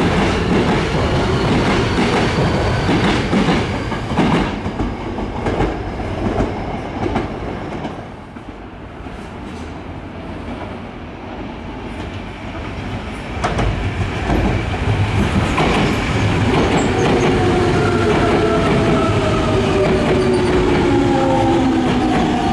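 Yokohama Municipal Subway Blue Line electric trains at a station. A train runs past with wheels clattering over the rails and fades about a third of the way in. Then an arriving train grows loud, and its motor whine falls in pitch as it brakes into the platform.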